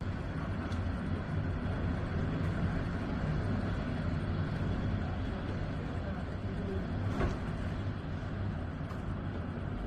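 Heavy surf breaking on a pebble beach: a steady, deep rush of waves with the grinding of stones being rolled by the water.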